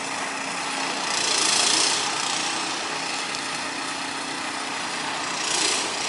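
Diesel engine of a long-tail boat running steadily, with a louder surge of hissing churn about a second in and again near the end. Its propeller is fouled with plastic bags in thick water hyacinth.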